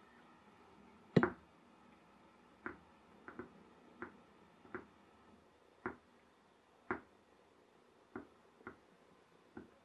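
Coiled aluminium-tube pop-pop boat engine, heated by a campfire tablet, ticking as it runs: about a dozen sharp clicks at uneven intervals, the loudest about a second in.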